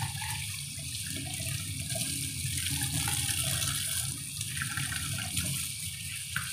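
Water running from a kitchen tap onto mushrooms held in a plastic colander and splashing steadily into a stainless steel sink.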